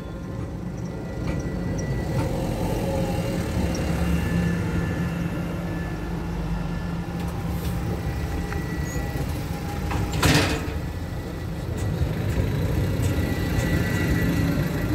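A tram running with a steady low rumble, with a short, sharp burst of noise about ten seconds in.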